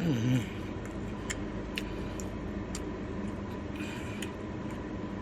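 Chewing and mouth sounds while eating crispy fried chicken strips: a brief hum of voice at the start, then scattered small clicks and smacks over a steady background hum.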